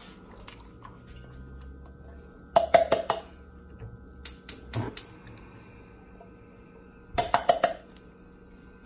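A metal food can, emptied of pink beans, knocking against a metal cooking pot in three short clusters of sharp, ringing clanks as it is shaken and tapped to get the last beans out.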